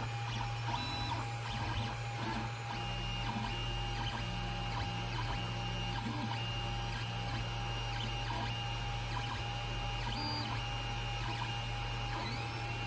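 Creality Ender 3 Pro 3D printer printing: its stepper motors give short, repeating pitched whines as the print head moves, over the steady hum of its hotend cooling fan.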